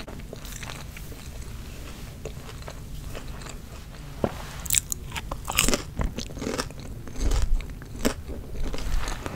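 Close-miked eating sounds: soft mouth noises at first, then a bite about four seconds in followed by crunchy chewing with sharp crackles from crispy fast food.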